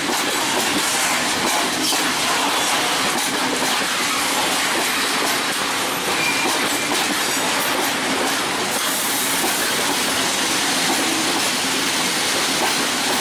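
Freight train of Falls-type self-discharging hopper wagons rolling past close by: a steady rumble of wheels on rail with clicking over the rail joints, and a short wheel squeal about six seconds in.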